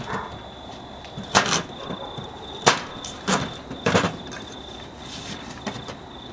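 A kitchen knife chopping carrots on a plastic cutting board: separate sharp knocks of the blade striking the board, a second or so apart, with a few lighter taps near the end.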